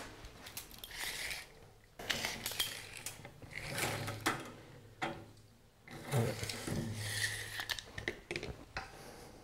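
A tape measure being pulled out and handled over a wooden tabletop: irregular stretches of rubbing and sliding with light clicks, over a steady low hum.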